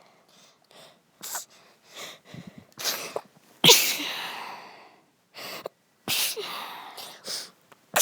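A woman sneezing several times, with short breaths between the sneezes. The loudest sneeze comes a little under four seconds in and another long one about six seconds in.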